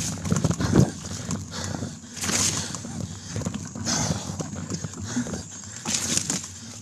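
Trek X-Caliber hardtail mountain bike rattling and knocking over a bumpy dirt single-track trail, picked up through a bike-mounted phone's waterproof case. Rushes of hiss come about every second and a half to two seconds.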